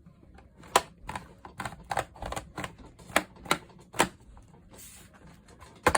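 Plastic retaining clips of a Chromebook case snapping loose one after another as a spudger pries around the seam: a run of sharp, irregularly spaced clicks.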